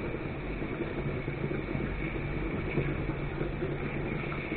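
Grated carrots and onion frying in a pan on a gas stove, a steady sizzle with a faint low hum underneath.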